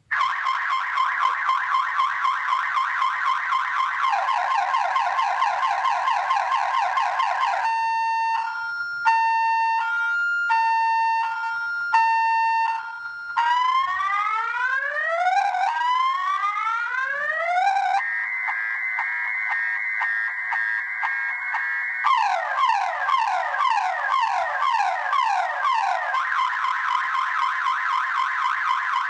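Viper car alarm siren sounding in full panic mode, cycling through its tones: a fast warble, then rapid falling chirps, a two-tone hi-lo alternation, rising whoops, a steady buzzing tone about 18 seconds in, rapid falling sweeps, and back to the warble near the end. It starts abruptly and stays loud throughout.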